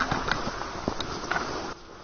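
Footsteps and clothing rustle of a person walking on a leaf-littered dirt trail, with a few scattered scuffs and clicks; near the end the sound drops to a quieter, even outdoor hush.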